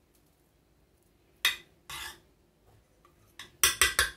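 A metal spoon clinking and scraping against a glass baking dish while spreading chocolate cream: one clink about one and a half seconds in, a short scrape, then a quick run of clinks near the end.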